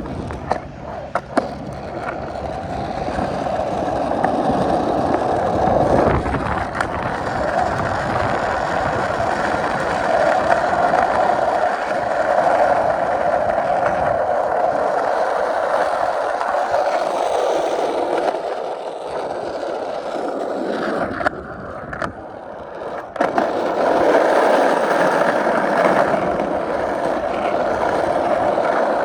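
Skateboard wheels rolling over pavement, a steady loud rumble with a few sharp clicks in the first couple of seconds. The rolling drops off for a moment about three-quarters of the way through, then comes back with a click.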